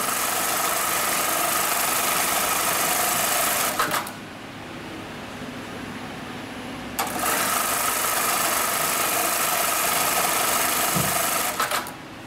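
HighTex 430HM computerized bar tacking sewing machine, a Brother KE-430D-type industrial machine, stitching bar tacks through nylon webbing at high speed in two automatic cycles. Each run ends abruptly with a few clicks, and there is a quieter pause of about three seconds between them.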